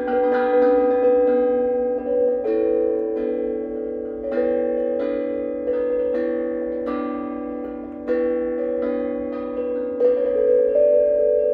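Two steel tongue drums struck with mallets in a duet, one in a Grace B-minor scale and one in an Astral B-minor scale, their ringing notes overlapping in harmony. A strike about every half second, growing softer toward eight seconds in, then a stronger strike about ten seconds in.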